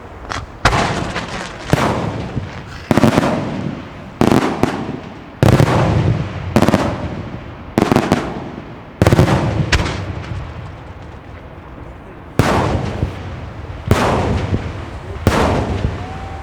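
Pirotecnica Pellicani fireworks display: loud bursts going off one after another, about one every second, each bang echoing away. There is a short pause of about two seconds a little past the middle before the bursts resume.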